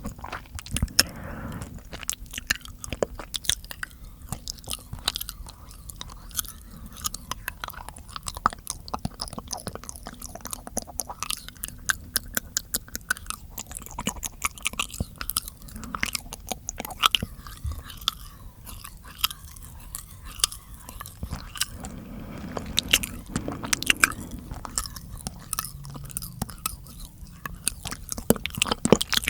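Close-miked mouth sounds for ASMR: a dense, irregular stream of small wet clicks and smacks, like chewing.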